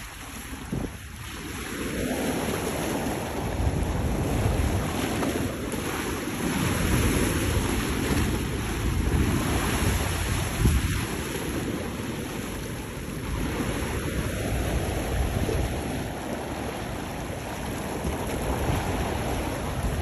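Wind buffeting the microphone over the steady wash of sea surf, rising and falling in gusts.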